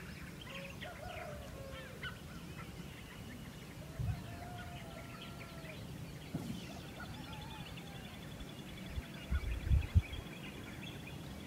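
Hillside nature ambience: many birds chirping and calling, with two longer, lower calls early on and around four seconds in, and a fast, even, high trill from about six seconds in. A few low thumps near the end are the loudest sounds.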